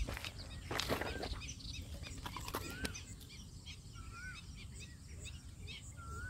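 Several small birds chirping continually, one of them repeating a short whistled note that rises and falls three times. A few footsteps squelch on wet mud in the first three seconds.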